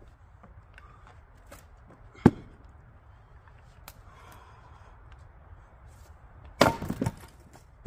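A sharp wooden knock about two seconds in as a round of firewood is set on the chopping block. Near the end, a Fiskars splitting axe comes down on the round with a loud chop that cracks it apart, a burst of impacts lasting about half a second.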